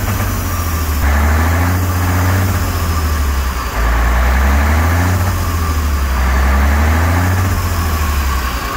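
Diesel engine of a Mercedes-Benz Actros 1840 tractor unit idling, with a low rumble that swells and eases every couple of seconds.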